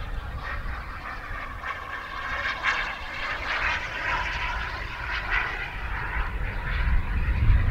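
Turbine engine of a radio-controlled model jet in flight, a steady rushing whine passing overhead that is strongest midway and thins toward the end, with low wind rumble on the microphone growing near the end.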